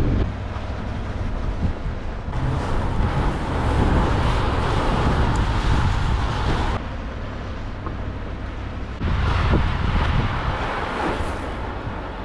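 Car driving along a rough dirt track, heard from outside the vehicle: tyre and road noise over a low rumble, with wind on the microphone. The noise gets louder twice, for a few seconds each time.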